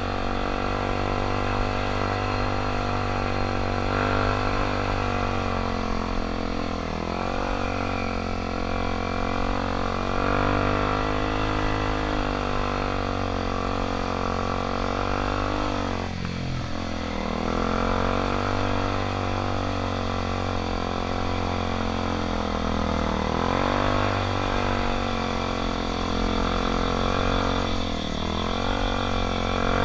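Dirt bike engine running under way, its pitch dropping and climbing again about four times as the throttle is eased and reopened.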